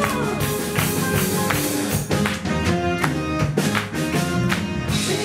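Live pop band playing an instrumental stretch between sung lines: a drum kit keeps a steady beat under electric bass, electric guitar and saxophone.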